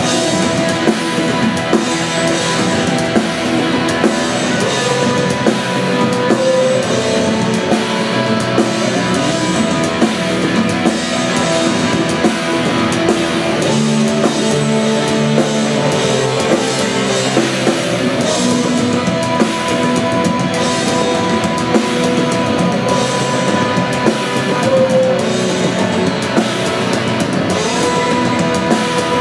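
Black metal band playing live at full volume: distorted guitars holding sustained chords over a steady drum-kit beat.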